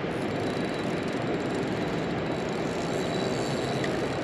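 Steady rushing of a river's current flowing over a gravel bed, even and unbroken.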